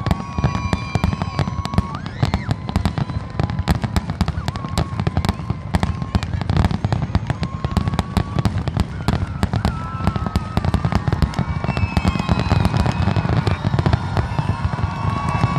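Aerial fireworks display: a dense, continuous barrage of shell bursts and crackling, many bangs a second over a steady low rumble, with thin held whistling tones above.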